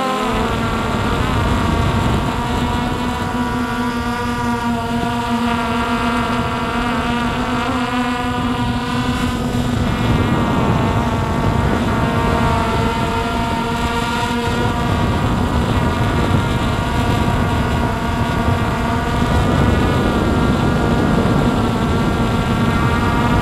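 Hubsan X4 Pro quadcopter's brushless motors and propellers whining in flight, several tones shifting up and down in pitch together, with some wind noise on the microphone.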